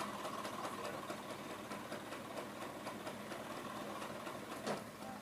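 Bajaj Classic scooter's small two-stroke engine idling steadily with a fast, even ticking, with one sharp knock near the end.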